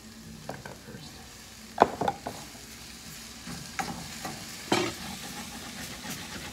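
Wooden spoon stirring quinoa in a stainless steel sauté pan as it sizzles and fries over the heat, with a few sharp knocks on the pan, the loudest about two seconds in and another near five seconds.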